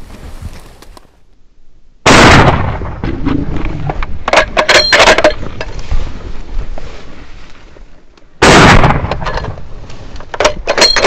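Two rifle shots about six seconds apart, each a sudden, very loud blast. The first is followed by a few seconds of rougher, lower noise.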